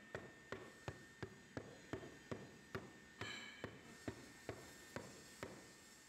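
Flat-plate hand rammer striking the moulding sand in a casting flask: a steady run of short thumps, about two or three a second, that stops shortly before the end. A brief ringing tone sounds about three seconds in.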